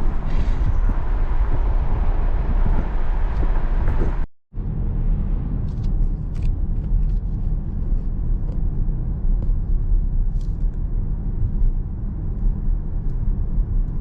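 Steady low rumble of a moving car's road and engine noise, heard from inside the cabin, cutting out briefly about four seconds in.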